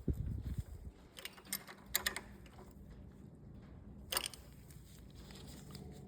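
Faint metallic clicks and taps of hand tools on a small-engine valve rocker as the exhaust valve clearance is adjusted: a wrench on the lock nut, a Torx bit turning the adjuster and a feeler gauge sliding under the rocker. About five separate clicks, two close together around two seconds in and one more near four seconds.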